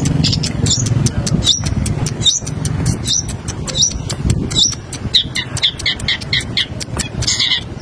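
Caged long-tailed shrike (pentet) singing in bursts of short, sharp high notes, speeding up to a quick run of about five notes a second in the second half.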